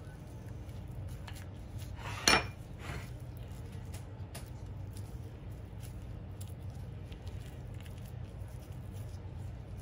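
Gloved hands working raw ground beef in a glass pie plate: faint soft handling and plastic-glove rustle over a steady low hum. One sharp clink of the glass dish comes about two seconds in.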